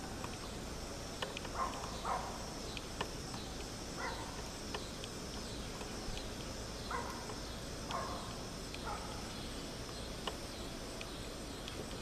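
Outdoor summer ambience: a steady, high-pitched chorus of insects, with a few brief, fainter chirps and small clicks scattered through it.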